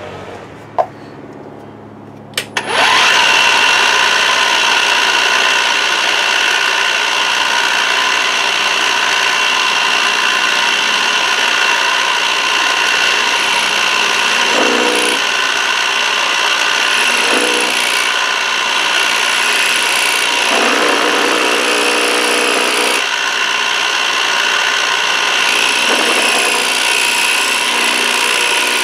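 Milling machine end mill cutting a copper bar: a loud, steady machining sound with several steady high tones. A sharp click comes about a second in, and the cut begins nearly three seconds in.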